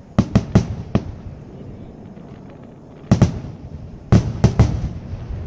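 Aerial firework shells bursting with sharp booms: a quick run of four in the first second, then two about three seconds in and three more just after four seconds. The booms trail off in a low rumble between them.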